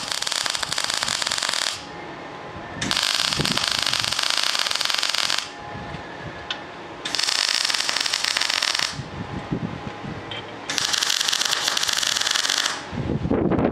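MIG welding arc crackling on steel plate in four short runs of about two seconds each, with brief pauses between them as tack welds are laid.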